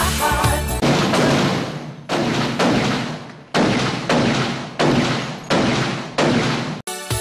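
A string of about eight gunshots, each a sharp crack with a long echoing tail, spaced irregularly between half a second and a second and a half apart. Music comes back in just before the end.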